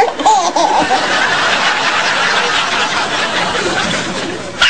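Baby laughing: a few short high squeals near the start, then breathy, continuous laughter.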